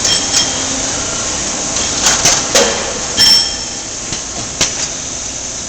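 Koyo KC 500 centerless grinder running in automatic cycle on camshafts: a steady mechanical noise, with a cluster of sharp knocks about two to three and a half seconds in and one more a little later from the automated part handling.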